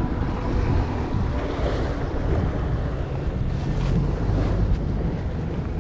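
Wind buffeting the microphone over the steady wash of waves around a small boat.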